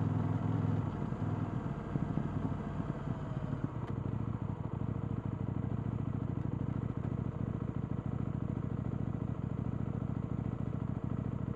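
KTM 890 Duke R's parallel-twin engine on its stock exhaust, louder for about the first second, then easing off and running steadily with an even pulse from about four seconds in, like a settled idle.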